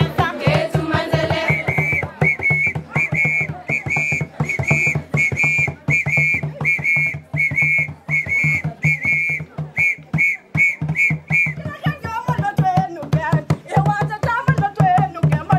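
Traditional dance music: a drum beats a steady rhythm while a whistle is blown in short, evenly spaced blasts, about two a second. The whistle stops near twelve seconds in and a group of girls' voices takes up singing over the drum.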